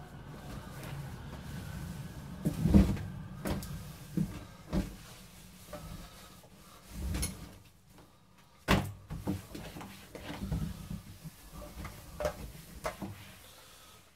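Irregular knocks and clunks of kitchen items and cupboard doors being handled at a counter, the loudest knock about three seconds in and a sharp one near nine seconds.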